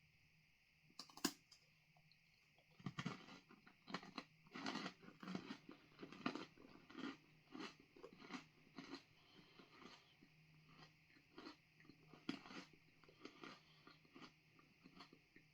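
A crisp bite into a freeze-dried ice cream sandwich with wafers, then crunchy chewing at about one to two chews a second, growing fainter toward the end.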